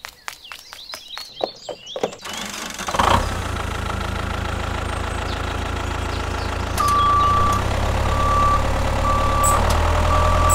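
A run of quick clicks, then a tractor engine starts about three seconds in and runs steadily with a low hum. From about seven seconds a reversing alarm beeps four times, about once a second, as the tractor backs up.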